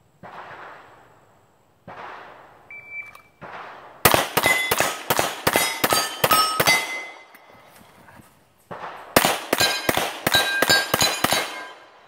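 Rapid handgun fire in two quick strings of about eight to ten shots each, with steel plate targets ringing as they are hit.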